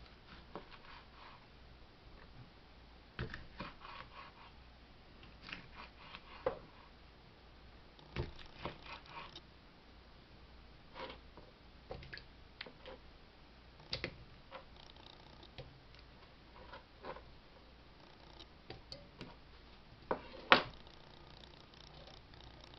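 A chef's knife slicing sausages on a cutting board: irregular, scattered knocks of the blade against the board, with slices dropped by hand into a wok. The loudest knock comes about 20 seconds in.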